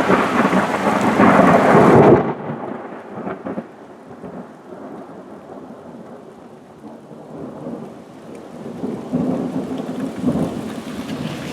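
Thunder with rain: loud for the first two seconds, then a lower rolling rumble that dies down and swells again near the end.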